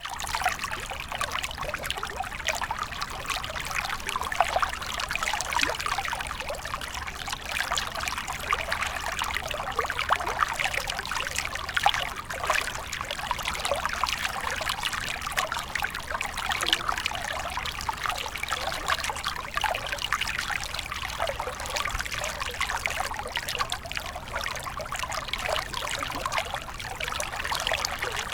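River water flowing and babbling steadily over rocks, a continuous trickling and splashing with no break.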